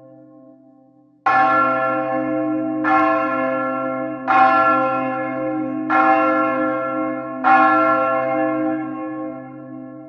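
A church bell tolling: five strokes about a second and a half apart, each ringing on into the next, the last fading away near the end.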